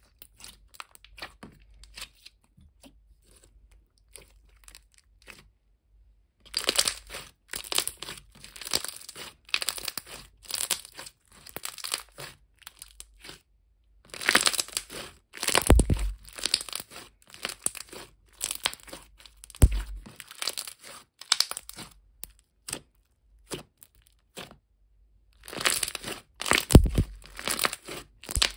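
Thick glossy slime being squeezed, folded and pressed by hand, giving dense runs of wet clicks, crackles and bubble pops, with three dull thumps of the slime pressed against a steel sink. Only a few faint clicks for the first six seconds.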